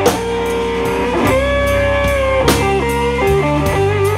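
Live blues band with a Fender Stratocaster electric guitar playing a lead fill between vocal lines. It holds long notes, bending one upward about a second in and shaking the last with vibrato, over steady low backing and drums with cymbal hits.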